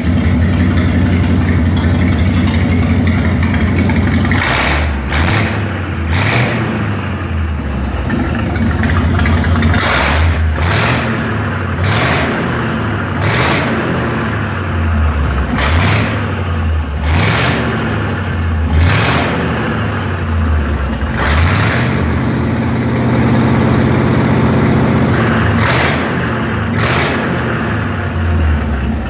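The 302 Ford V8 engine of a 22W cable-tool drilling rig runs steadily at first. From about four seconds in, it labours rhythmically: its pitch dips and rises with each stroke of the drilling line, with a sharp clank at each stroke about once a second. The strokes pause for a few seconds before two more near the end.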